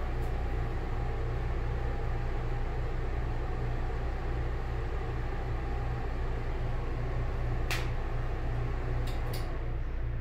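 Broan ceiling exhaust fan running, a steady low hum with airflow noise. A few short clicks near the end.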